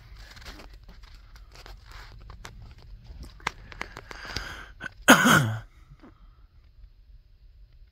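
Soft rustling and light ticks of a kitten moving over bedding, then, about five seconds in, a short loud vocal sound falling in pitch from a person close to the microphone.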